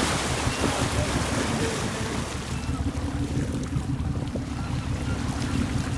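Steady low rumble of a fishing boat's motor, with wind on the microphone and the wash of sea water.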